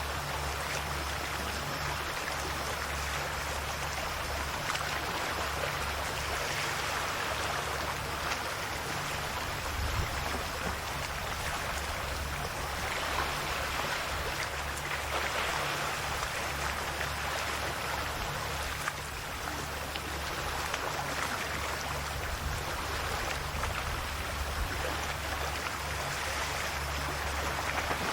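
Calm Adriatic sea waves lapping and washing along the shore, swelling gently every several seconds, with a steady low rumble underneath.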